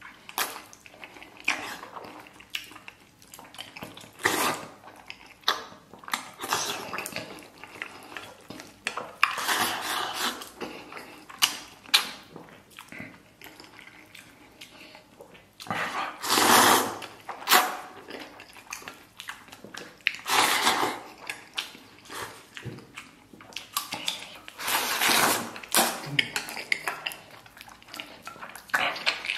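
Close-miked eating: chewing and slurping of braised pork hock, noodles and rice, with wooden chopsticks clicking and scraping against a stainless steel bowl. Louder, longer slurping bursts come about halfway through and again near the end.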